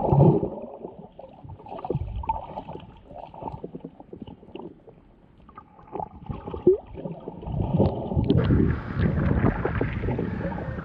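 Muffled underwater sound from a camera held under water while snorkelling: water rushing and gurgling, with many small clicks and bubbles. It grows louder and brighter from about eight seconds in.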